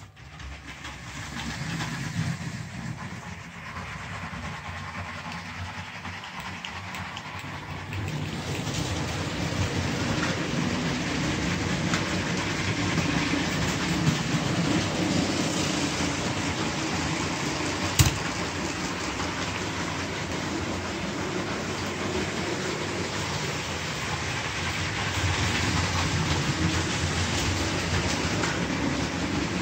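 LEGO toy trains, a Santa Fe locomotive among them, running on plastic track with a steady mechanical running noise that grows louder about eight seconds in. A single sharp click about eighteen seconds in.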